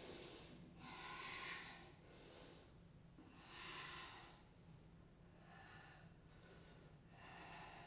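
A woman's faint, effortful breathing, about six breaths in a row, as she holds and shifts through a strenuous arm balance.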